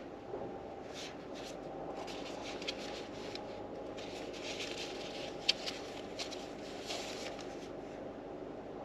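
Paper pages of a book rustling and being handled: scattered soft crackles and ticks, the sharpest about halfway through, over a steady hum inside a car.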